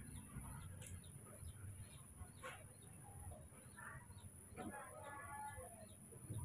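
Faint, scattered short high chirps, with a brief pitched call about five seconds in, over a low rumble.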